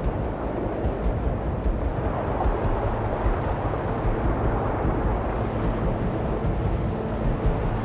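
A steady low engine hum under a constant wash of noise.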